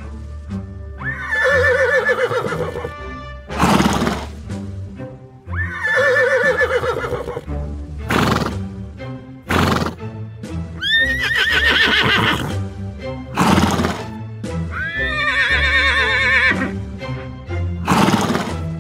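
Horse whinnying four times, a few seconds apart, each call with a quavering pitch, with short loud noisy sounds between the calls. Background music plays underneath.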